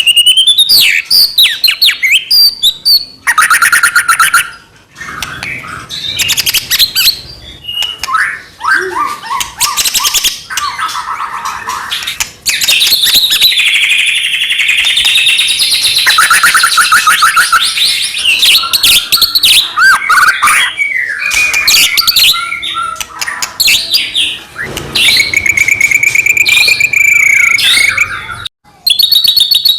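White-rumped shama (murai batu) singing loudly and almost without pause: a fast, ever-changing run of trills, rapid chattering notes and sliding whistles, broken only by brief gaps about four seconds in and near the end. This is the bird's full, excited 'gacor' song, used to provoke other shamas into singing.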